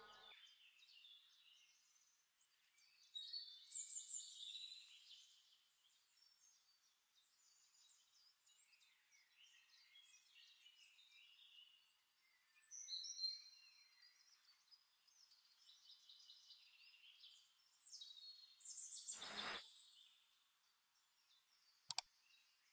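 Faint bird chirps and calls in short spells a few seconds apart, over near silence. Near the end there is a falling whoosh and then a single sharp click.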